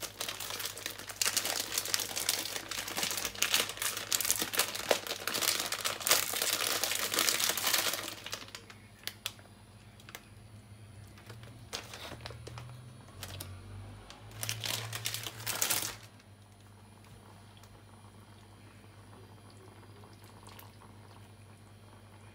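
Thin plastic food packet crinkling and crackling as it is handled and torn open, dense for about the first eight seconds, then a shorter burst of crinkling about fifteen seconds in. A faint steady low hum stays underneath throughout.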